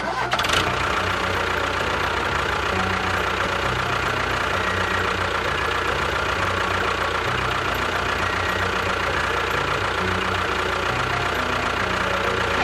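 A small motor running steadily with a constant whine, the drive of a miniature DIY construction vehicle.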